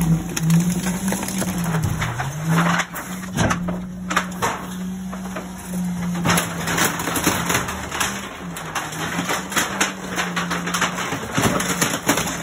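Garbage truck's hydraulic packer compacting trash, with irregular crunching and snapping of metal furniture and shelving over the steady hum of the truck's engine and hydraulics, which rises and falls in pitch.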